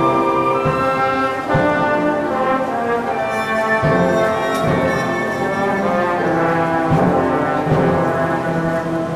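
Full school symphony orchestra playing, brass prominent over the strings in sustained chords, with a few low drum strokes.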